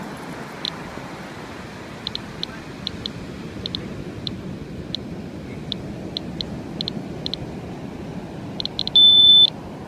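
Handheld Geiger counter clicking irregularly, about two to three short high clicks a second, over a steady rushing background. About nine seconds in, its alarm gives one loud, steady, half-second beep, which signals a count rate above its threshold of three times background.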